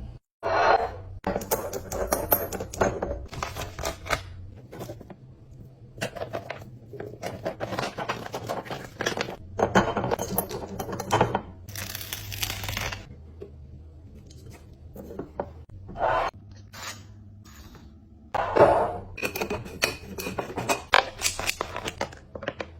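Kitchen items being handled: a run of rustles, tears and small clacks of packaging and containers, with a longer hissing tear or rustle about twelve seconds in.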